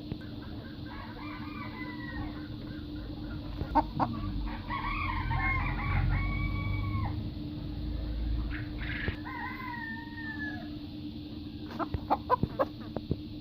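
Chickens in a poultry shed, several birds clucking and crowing in a few separate calls, one crow holding a steady note for about a second. A steady low hum runs underneath, and a quick run of sharp clicks comes near the end.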